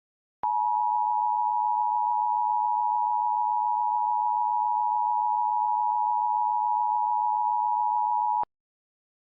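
The two-tone Emergency Alert System attention signal, held steady for about eight seconds, starting and cutting off abruptly.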